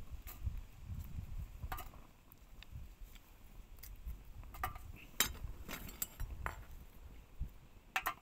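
Scattered light clicks and snaps as twigs and kindling are fed into a tin-can hobo stove, about nine over a few seconds, over a low rumble.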